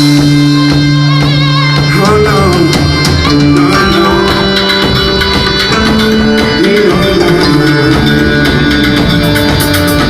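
Instrumental break of a cumbia song: band music with a steady drum beat, bass and a melody line.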